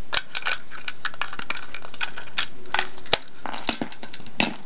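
Small plastic toy parts being handled: irregular sharp clicks and short rustling scrapes as a doll and its plastic case and ties are pulled apart.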